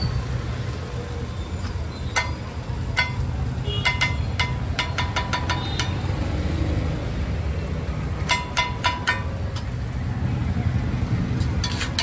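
Metal spatula striking a flat iron griddle (tawa) in quick clusters of ringing clangs, first from about two seconds in and again a little past the middle. Under it runs a steady rumble of street traffic.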